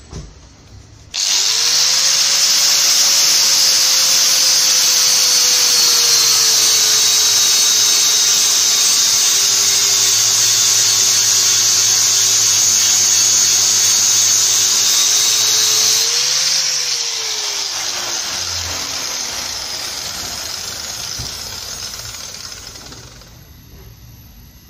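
850 W hand angle grinder with a 60-grit flap disc starting about a second in and grinding down a weld bead on thin steel tube, a loud steady hiss over the motor's whine. Near the end the disc comes off the metal, the whine rises briefly, then the grinder is switched off and winds down with a falling pitch over several seconds.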